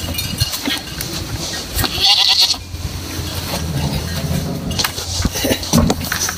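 Goats bleating during feeding, one longer call a little past the middle, amid scattered knocks and a brief rustle of feed and containers.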